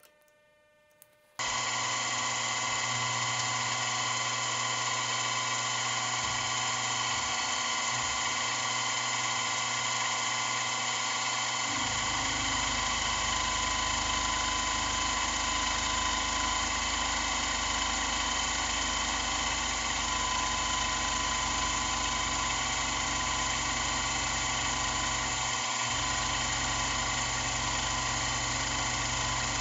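Milling machine running a face mill across an aluminium block. The spindle starts abruptly about a second and a half in and runs with a steady whine. About twelve seconds in a deeper rumble joins as the cutter bites into the work.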